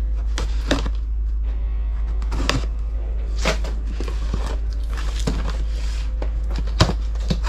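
Cardboard box being opened and its packaging and contents handled: scattered knocks and rustles, with a steady low hum underneath.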